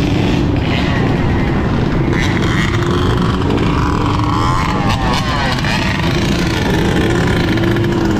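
Dirt bike and ATV engines running as a group rides down a street, mixed with heavy wind rush on the bike-mounted microphone, with revs rising and falling around the middle.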